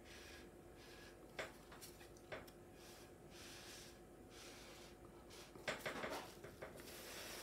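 Faint, short puffs of breath blown through a drinking straw onto wet acrylic paint, repeated several times, with a few light clicks in between and a small cluster of them near the end.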